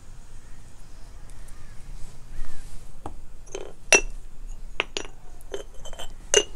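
A quick series of sharp clinks of a spoon against a small clay spice pot, starting about three seconds in, each with a brief ringing.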